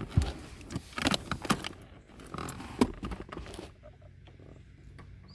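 Handling noises: a run of sharp clicks and knocks for about three and a half seconds, then quiet with a faint steady low hum.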